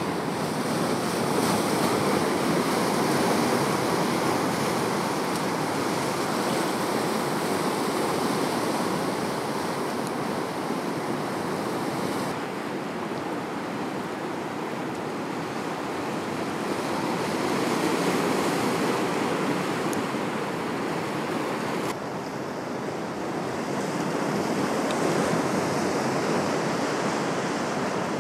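Sea waves breaking on a beach: a steady wash of surf that swells and eases every several seconds. The sound changes abruptly twice, where the clip is cut.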